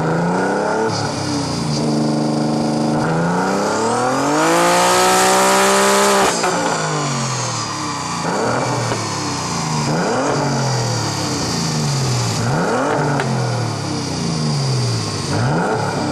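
BMW E46 3 Series convertible's engine being revved on a chassis dyno. It holds briefly at steady revs, then climbs in one loud run that peaks and drops off suddenly about six seconds in, followed by several quick throttle blips, each rising and falling in pitch.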